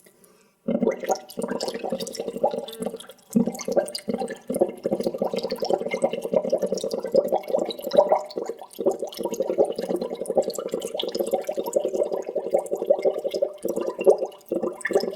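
Water bubbling in a dense, rapid stream of small pops. It starts after a short silence and breaks off briefly about three seconds in and again near the end.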